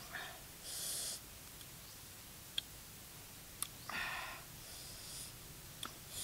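A man breathing audibly through his mouth and nose: a short hissing breath about a second in and a longer breathy exhale about four seconds in. A few short sharp clicks fall between them.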